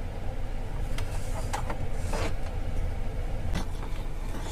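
A few light clicks and scrapes of a small tool working at a diesel heater's glow plug, over a steady low rumble.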